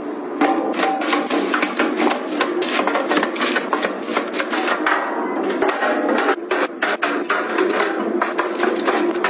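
Household objects being handled, moved and set down during cleaning and tidying: a dense, continuous stream of small clicks, knocks and rustles, easing briefly a little past halfway.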